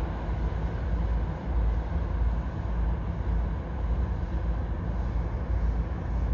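Passenger train rolling past: a steady, heavy low rumble of wheels on the rails.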